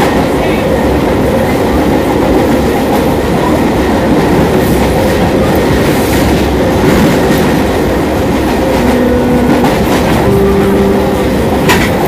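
CPTM Série 4400 electric multiple unit running, its motor sound over a steady rumble of wheels on rails with clickety-clack. A few brief steady hums come in during the last third, and a sharp click is heard just before the end.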